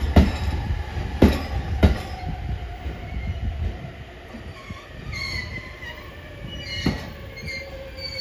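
E231 series EMU wheels clacking over rail joints as the train pulls in: three sharp clacks in the first two seconds and another near seven seconds, over a low running rumble. A thin, high squeal comes in over the second half.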